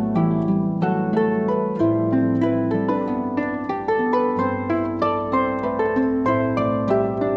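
Two acoustic pedal harps playing a duet: a steady stream of plucked notes ringing over sustained low bass notes.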